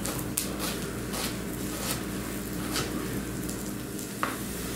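Salmon nuggets sizzling in a frying pan with a little oil: a steady crackling hiss, with a few light ticks and one sharper click about four seconds in.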